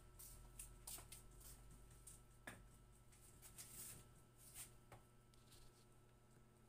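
Faint, scattered swishes of a soft grass broom sweeping the floor, a stroke every second or so with near silence between.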